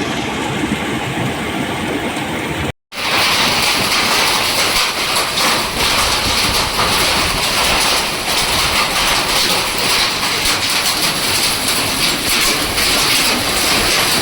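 A swollen mountain stream in flood, rushing as a loud, steady roar of water. A cut about three seconds in makes the rush brighter and hissier after it.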